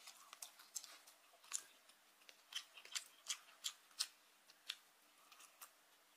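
Faint, irregular sharp clicks of a plastic fork picking at boiled dumplings in a plastic microwave tray, with soft chewing.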